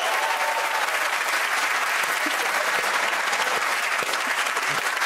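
Studio audience applauding steadily, a dense even clapping that begins to thin out near the end.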